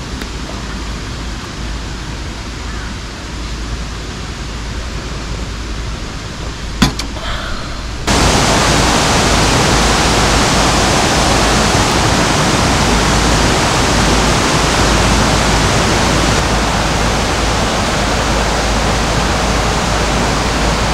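Steady rush of running water. About eight seconds in it becomes suddenly louder and stays even, with a single sharp click shortly before.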